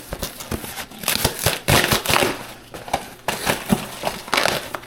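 A package being opened by hand: packaging torn and crinkled in irregular, sharp crackling bursts.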